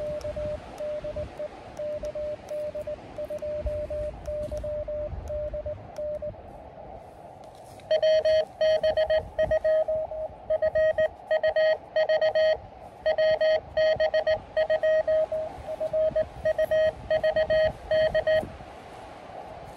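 Morse code (CW) from a portable ham transceiver, an Elecraft KX2 on a QRP summit activation: a single pitch keyed on and off in dits and dahs. A softer run of code plays first, then after a short gap a louder run starts about eight seconds in and stops shortly before the end.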